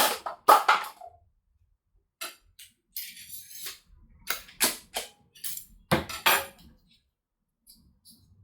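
Sharp clicks, knocks and clinking rattles of hard objects being handled, in irregular bunches with short gaps, including a brief rattling stretch around three seconds in.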